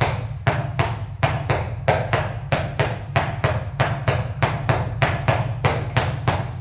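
Two handballs dribbled alternately on a hard indoor floor, one ball bouncing just after the other, in a steady rhythm of about four bounces a second, each bounce ringing briefly in the hall.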